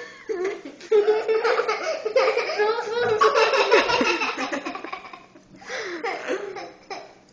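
Girls laughing and giggling hard with their mouths full of marshmallows. The laughter is loudest in the first few seconds and dies down to quieter giggles after about five seconds.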